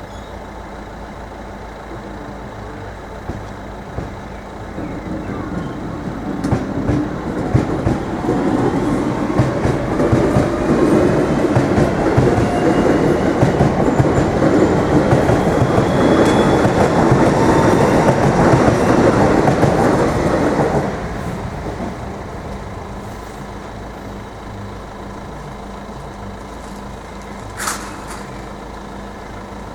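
Irish Rail 8520 class DART electric train passing close by as it pulls away, its wheels clacking over the rails with a faint rising whine. The sound builds over several seconds, stays loud for about ten, then drops away suddenly. A single sharp click near the end.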